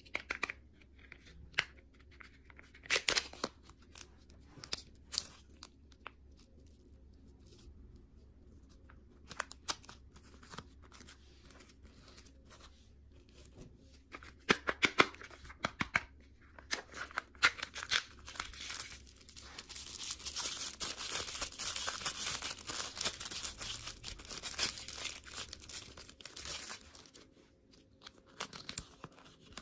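Plastic candy packaging being handled and torn open: scattered crinkles and sharp clicks, then about two-thirds of the way through a long run of continuous tearing and crinkling lasting several seconds.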